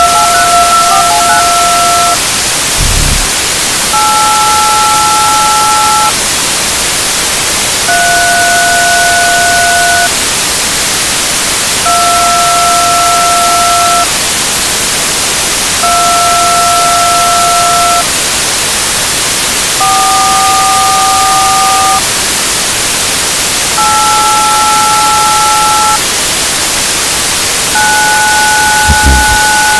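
Loud steady static hiss with a slow series of eight dual-tone telephone keypad (DTMF) tones, each held about two seconds with two-second gaps, the pitch pair changing from tone to tone. Two short low thumps sound, a few seconds in and near the end.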